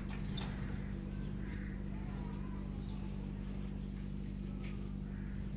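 Street ambience: a steady low hum with faint distant voices and a few small ticks.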